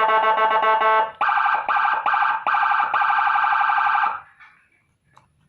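HHS 80-watt electronic siren module sounding its siren tones: a rapid repeating electronic yelp for about a second, then a switch to another tone that pulses four times before a longer fast warble, cutting off about four seconds in.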